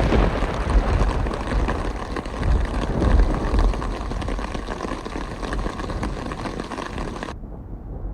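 A long roll of thunder over rain, loudest in the first few seconds and slowly fading.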